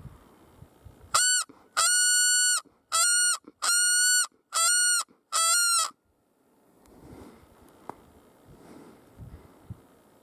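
A bear-hunting predator call blown by hand in six loud blasts, each a fraction of a second long, held on one high pitch and cut off sharply, to draw in a black bear. Faint rustling follows.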